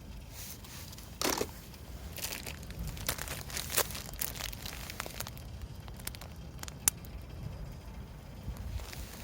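Handling noise: crinkling and rustling with scattered sharp clicks and taps.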